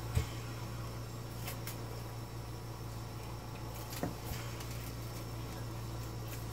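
Knife and fork cutting steak on a plate, with a short cutlery click just after the start and another about four seconds in, over a steady low hum.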